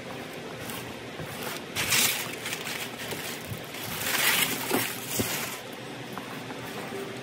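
Rustling and scraping as hands press crumbly pie-crust dough into a metal baking pan, with two louder rustling spells, about two seconds in and again around four to five seconds in.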